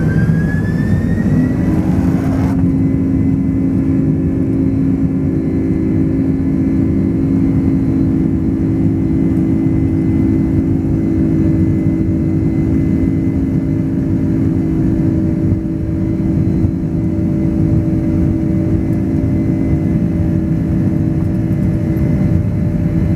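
Jet airliner cabin noise beside a wing-mounted engine while taxiing onto the runway for takeoff: a loud, steady rumble with a steady engine hum. A whine rises in pitch over the first two seconds, and about two and a half seconds in the high hiss drops away abruptly.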